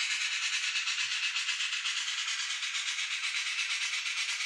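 Sound decoder of an N-scale DCC steam locomotive playing a steady, rapid chuff through the model's small speaker as it runs on the track. The sound is thin and hissy, with no bass.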